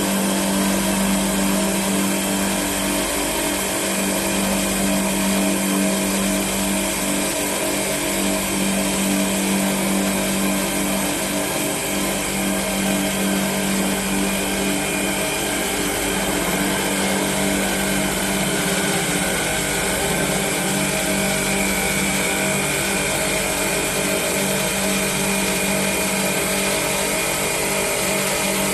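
Three-spindle CNC wood lathe turning three wooden blanks at once, its carriage of cutters shaving the spinning wood: a steady machine hum with a strong low tone under the noise of the cutting.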